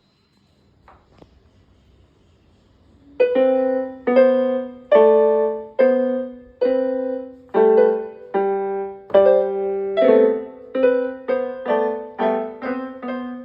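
About three seconds of near silence, then a simple piano melody. Each note has a lower note under it, slow at first and quicker in the second half.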